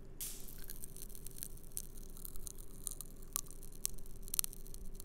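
Grape Kool-Aid popping candy crackling in the mouth: small sharp pops at irregular intervals.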